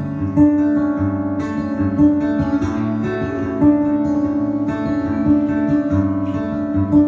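Acoustic guitar playing an instrumental passage of a slow country ballad, strummed and picked, with no singing.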